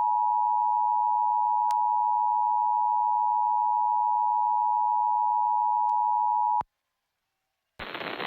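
Emergency Alert System attention signal: the steady two-tone 853 Hz and 960 Hz alert tone, cutting off abruptly about six and a half seconds in. After about a second of silence, a burst of hiss starts near the end.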